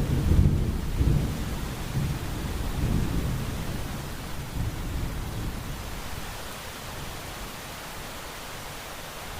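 Steady rain hiss with a low rumble of thunder that rolls through the first few seconds and dies away, leaving the rain alone.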